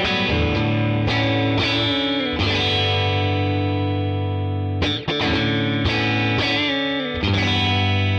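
TreeTone Songbird electric guitar played through an amplifier with some overdrive: chords are struck one after another and left to ring, with a short break about five seconds in before the next chords.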